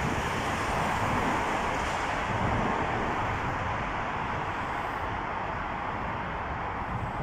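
Steady roar and hiss of road-tunnel background noise, easing slightly over several seconds, with no single distinct event.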